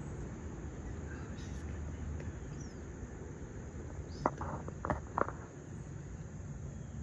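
A kitten's hiccups: three short, squeaky hiccups in quick succession a little past halfway, over steady low background noise.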